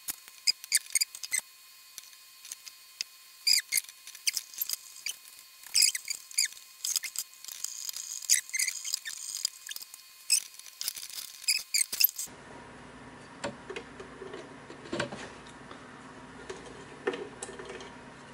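Felt-tip marker squeaking in quick short strokes while writing a label, a dense run of high squeaks and clicks that stops about twelve seconds in. After that, only a few light handling clicks on the circuit board.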